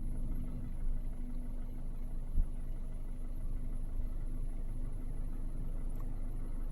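Steady low drone of a vehicle running, with one short thump about two and a half seconds in.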